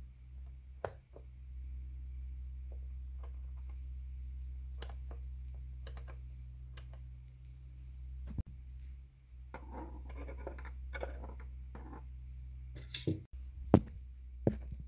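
Scattered clicks and scratches of small parts being handled, with a denser patch of scratching in the middle and a few louder, sharp clicks near the end, over a steady low hum.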